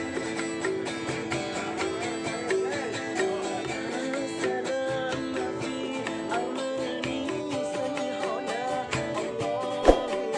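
Instrumental music with plucked strings playing a quick, repeating figure over a steady beat. There is one sharp knock near the end.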